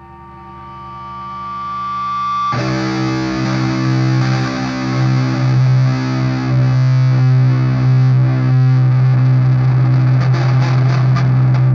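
Opening of a stoner-doom song: heavily distorted electric guitar swells in on a held note, then about two and a half seconds in a full, distorted low chord comes in and is held, droning.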